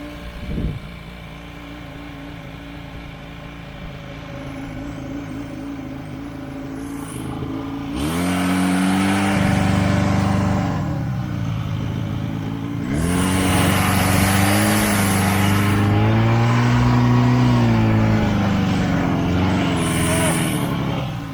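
Buran SB-640A snowmobile's two-stroke engine running, revving up sharply about eight seconds in and again about thirteen seconds in, holding high, then easing off near the end. A short knock about half a second in.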